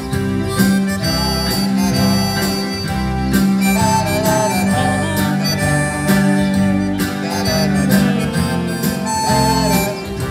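Live instrumental music with no singing: a reedy melody instrument, most like a harmonica, plays the tune over strummed acoustic guitar and a steady low accompaniment.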